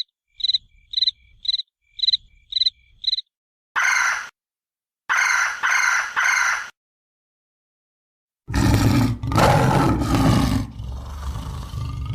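A run of different animal calls: short, evenly repeated high calls, then a few harsher calls, a pause, and from about eight seconds in a loud, drawn-out roar.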